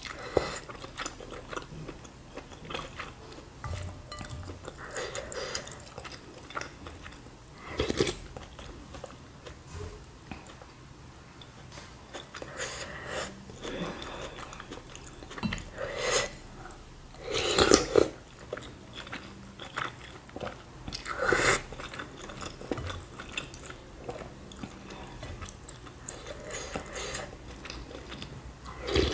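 Chewing and slurping noodles and spicy meatball soup from a wooden spoon, with a few louder, longer slurps spread through.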